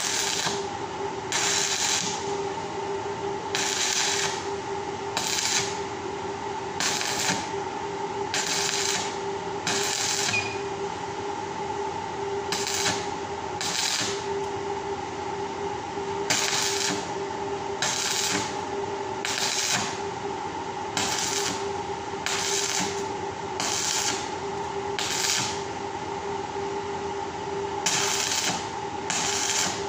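Electric arc welding in short tacks on the joints of a round wire grill grate: about twenty brief bursts of arc crackle, each under a second, one every one to two seconds, over a steady hum.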